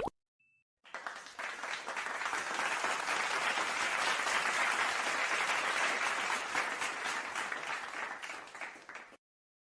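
Crowd applauding, an edited-in sound effect: it starts abruptly about a second in, swells, then fades and cuts off shortly before the end.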